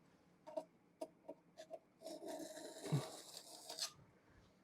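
Faint small clicks and taps of a steel layout tool, then about two seconds of scratching about two seconds in: a scriber marking layout lines on a cast iron block.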